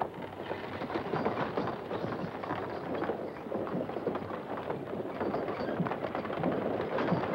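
Horse team hauling a heavy wagon: a steady clatter of hooves with the rumble of its wheels.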